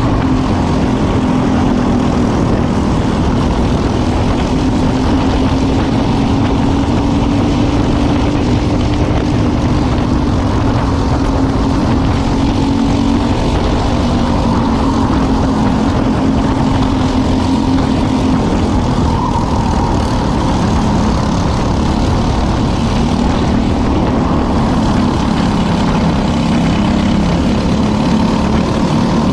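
Briggs & Stratton LO206 four-stroke single-cylinder kart engine running under racing load. Its note rises and falls gently with throttle through the laps, over a steady rush of noise.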